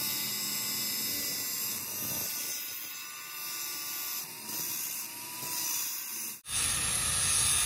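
Small high-speed rotary tool grinding metal bearing steel, a steady high whine with many high tones and little low end. It cuts off suddenly about six and a half seconds in, giving way to a fuller, louder noise.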